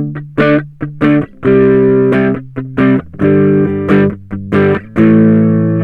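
Ibanez GAX30 electric guitar on its Belcat neck humbucker, played through a Klon Centaur-style overdrive pedal with no modulation: a lightly crunchy run of short chord stabs and a few held chords, the last one cut off sharply near the end.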